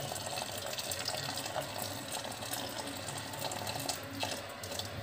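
Boiling water poured in a steady stream into a metal pot of dried herbs, splashing continuously.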